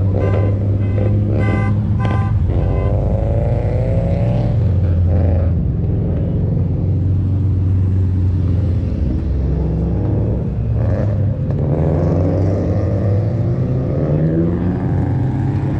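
Several car engines running as cars roll slowly past, with one engine rising in pitch as it accelerates a few seconds in.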